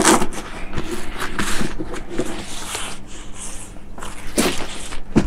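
A Crye Precision JPC 2.0 plate carrier with a hard plastic plate inside, handled and turned over by hand: the fabric rustles and rubs in many short strokes, with one louder brush about four and a half seconds in.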